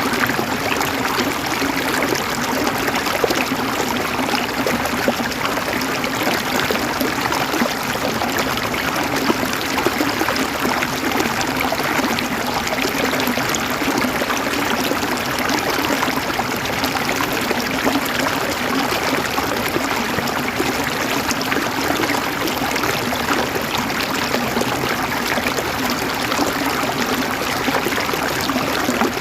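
River water flowing and gurgling over stones, a steady, unbroken rush with fine splashing detail.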